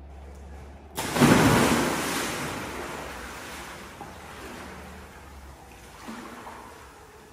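A person in full motorcycle leathers and helmet jumping into a pool: one big splash about a second in, then water sloshing and churning as he moves about, with a couple of smaller splashes.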